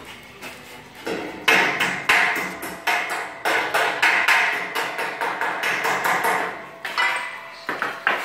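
Hammer blows on metal, struck roughly twice a second. Each strike rings briefly, and the blows start about a second in.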